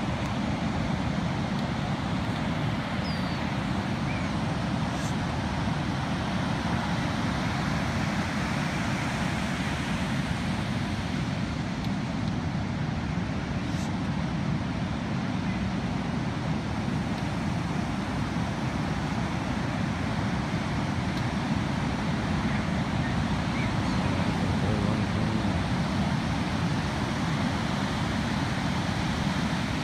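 Ocean waves breaking in heavy surf on a sandy beach, a steady wash of noise, with wind rumbling on the microphone.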